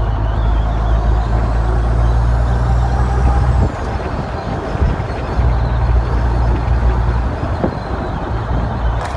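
Renault Magnum 440's Mack E7 E-Tech straight-six diesel pulling under load, with a faint rising turbo whistle. The engine note drops away twice as the ZF 16-speed manual gearbox is shifted: once about a third of the way in, and again briefly near the end.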